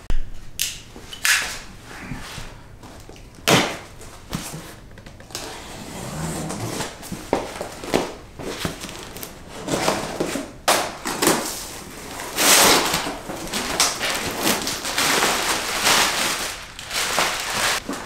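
A cardboard shipping box being opened and unpacked by hand: irregular knocks and scrapes of cardboard, with longer rustling stretches of packing material.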